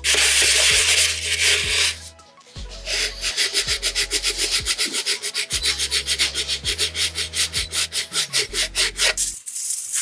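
Sanding sponge rubbed by hand over Bondo body filler on a 3D-printed part. It makes a steady rasp for about two seconds, pauses briefly, then goes into quick back-and-forth strokes, about six a second, which stop shortly before the end.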